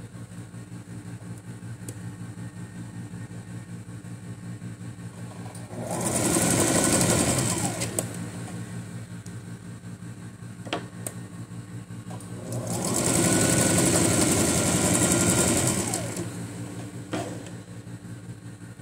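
Singer electric sewing machine stitching in two runs, a short one of about two seconds and then a longer one of about three seconds, with a steady low hum between. It is sewing a satin ribbon along a skirt hem.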